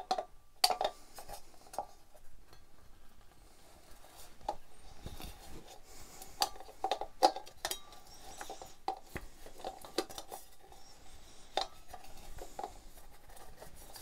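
Steel pliers clinking and scraping against the metal lamp shade of an old Anglepoise task light as they grip the nut inside and work the cord grip loose. Scattered metal clicks and knocks come as the shade is turned and handled.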